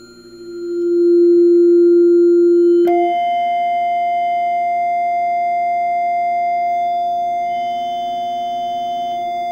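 Steady held musical tone sounded for a strobe tuner. It fades in, jumps suddenly to a higher pitch about three seconds in, and holds there.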